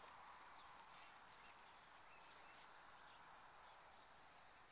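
Near silence: faint steady outdoor background hiss, with one small click about a second and a half in.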